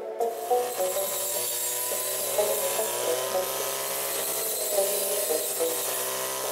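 Engine-powered brush cutter with a roller head running steadily at high speed, its blade cutting dry grass and stubble. It comes in just after the start.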